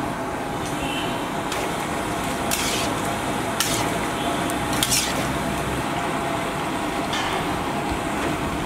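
Chicken and gravy frying and sizzling in a large iron wok while two metal spatulas stir it. The spatulas scrape against the pan three times, about two and a half, three and a half and five seconds in.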